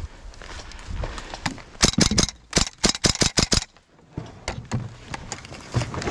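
Airsoft rifle firing in rapid bursts: a quick run of sharp cracks about two seconds in, then a longer string of about eight more, roughly six a second.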